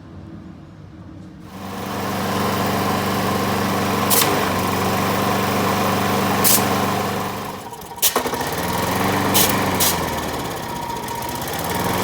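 Snapper lawn mower's small engine running, picking up sharply to a loud steady run about a second and a half in. It gives several sharp pops along the way, sags briefly, then picks up again with its pitch swinging up and down.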